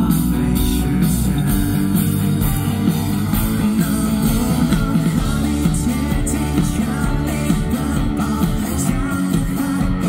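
Live band playing amplified music through a concert PA: electric guitars and bass, with a singer's lead vocal.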